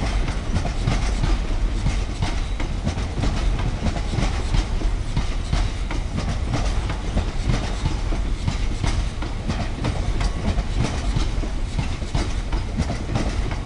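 A long freight train of covered hopper wagons passing close by: a steady low rumble with a continuous clatter of wheels over the rail joints.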